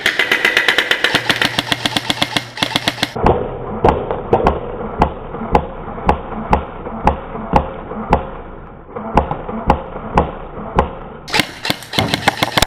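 Airsoft gun firing on full auto: a rapid burst of shots lasting about three seconds, then another burst near the end. In between, a steady run of sharp clicks about three a second.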